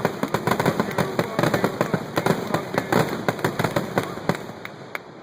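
Display fireworks going off in a rapid, dense string of crackling reports, many per second, that thins to a few scattered bangs near the end.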